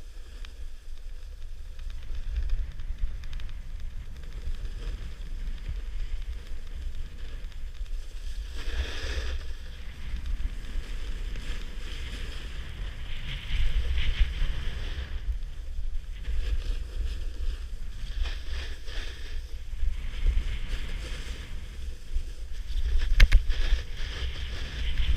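Wind buffeting a fast-moving action camera's microphone as a steady low rumble, with the hiss and scrape of edges carving packed snow swelling on turns, loudest about nine, fourteen and twenty-three seconds in. A couple of sharp clicks near the end.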